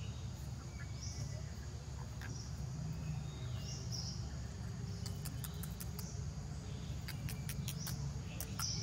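Insects (crickets) buzzing steadily, with short high chirps every second or so and a low rumble underneath; a run of fast, sharp clicks comes in the second half.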